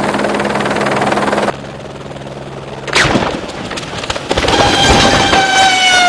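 Helicopter-crash sound effects: a dense rapid rattle that cuts off suddenly about a second and a half in, a loud crash about three seconds in, then a siren-like wail from about four seconds in that slowly sinks in pitch.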